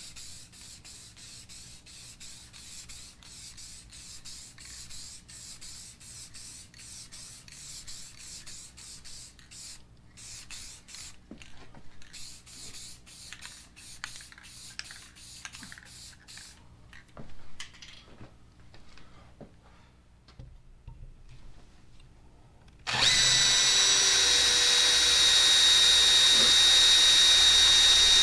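Light scraping and handling clicks, then about 23 seconds in an electric power tool starts abruptly and runs steadily with a high whine.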